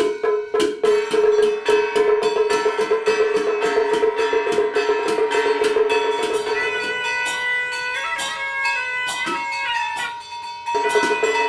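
Instrumental music: fast, evenly spaced percussion strikes over a held tone, thinning out about two-thirds of the way in as a melodic line comes forward.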